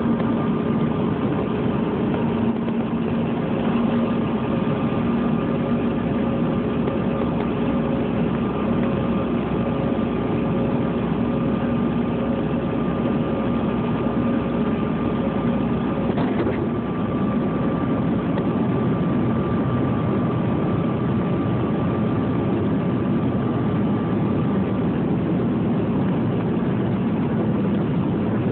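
Airliner cabin noise heard from a window seat: a steady engine drone with rushing air and a few faint, even hums, whose tones shift slightly about two-thirds of the way through.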